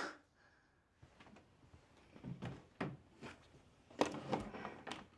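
A thump against a door right at the start, then faint, scattered breaths and small movement sounds.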